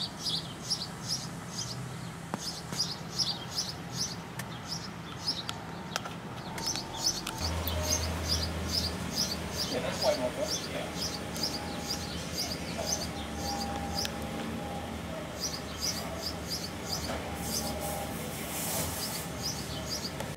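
A bird chirping over and over, about three to four short high chirps a second, with a few breaks. A low steady hum comes in about seven seconds in.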